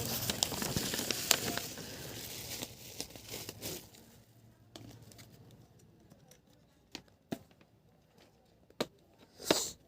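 Packaging being handled: paper and plastic crinkling and tearing for the first few seconds, then quieter with scattered clicks and taps.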